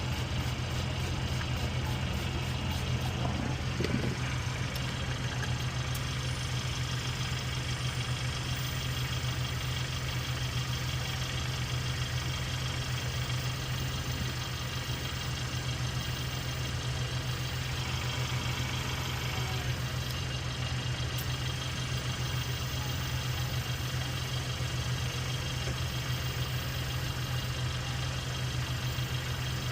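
An engine idling steadily, with an even low hum and no change in speed.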